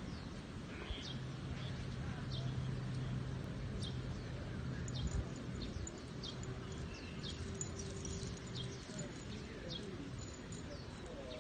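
Small birds chirping again and again: short, high, downward-sliding chirps, over a steady low hum of outdoor background noise.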